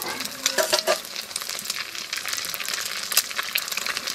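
Eggs frying in hot mustard oil in a kadai: a steady sizzle with dense crackling and popping of the spitting oil, and a few sharper clicks among it.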